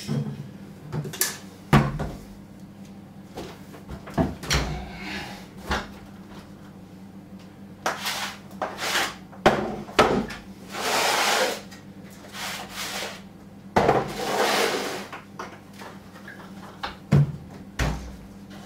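Irregular knocks, thuds and scrapes of heavy UPS battery modules being handled on a high shelf while someone climbs up onto a tumble dryer to reach them, with two longer scraping passages midway. A steady low hum runs underneath.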